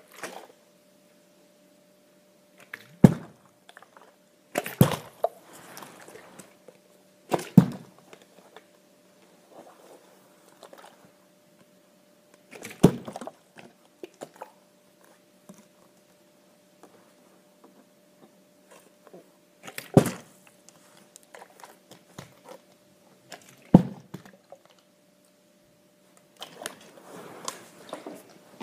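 Small, partly filled plastic water bottles being flipped and landing on a carpeted floor: about six separate thuds spread out, each with a short slosh of water.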